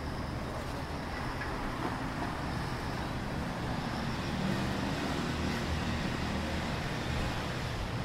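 Street ambience: a steady hum of road traffic, with an engine sound swelling for a few seconds in the middle.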